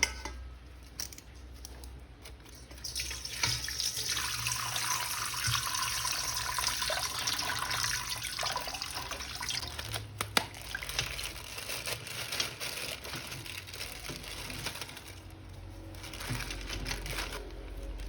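Water running from a tap into a sink, starting about three seconds in and stopping a few seconds before the end, with a few sharp handling clicks.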